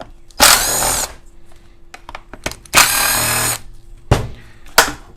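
Small cordless impact driver with a Phillips bit running in two short bursts, its motor whine dropping as it starts and then holding, backing out the screws of a chainsaw's cover. A couple of sharp clicks follow near the end.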